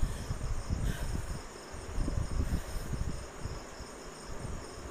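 A steady, high-pitched insect-like chirring in the background, with an irregular low rumble underneath.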